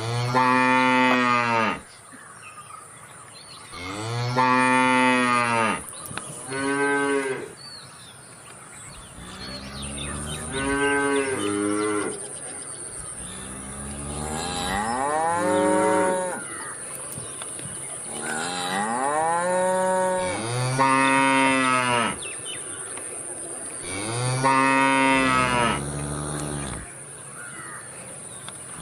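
Cattle mooing repeatedly: about seven long calls a few seconds apart, each rising and then falling in pitch.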